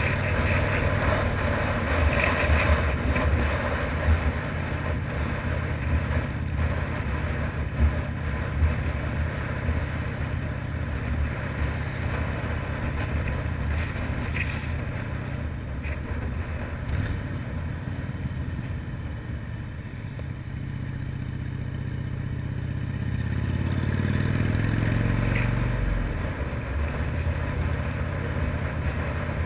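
Harley-Davidson V-twin engine running under the rider at a steady cruise, heard from a camera mounted on the motorcycle. About 23 seconds in, the engine note rises for a few seconds as the bike accelerates.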